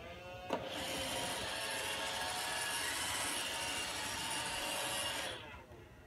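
iRobot Roomba robot vacuum starting up: its motors whine upward for about half a second, then the vacuum and brushes run with a steady whirring hiss for about five seconds before winding down near the end.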